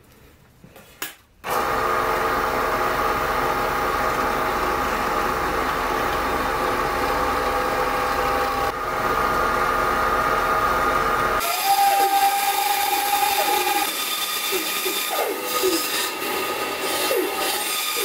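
A bench drill press starting and running steadily for about ten seconds, working a wooden board. Then, after an abrupt change, a band saw running and cutting through wood, with a steady whine and wavering, scratchy tones as the blade works the board.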